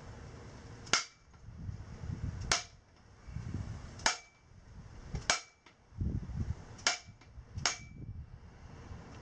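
Six sharp blows from a mallet on a length of pipe set over a motorcycle steering stem, driving a tapered roller bearing onto the stem. The blows come about one to one and a half seconds apart, and after several of them the pipe rings briefly.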